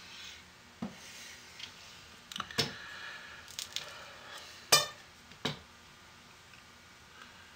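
Bars of hot-process soap being handled and cut on a wooden wire soap cutter: a series of irregular knocks and clacks as the soap and the cutter's parts are moved and set down. The loudest, with a short ringing tail, comes a little past the middle.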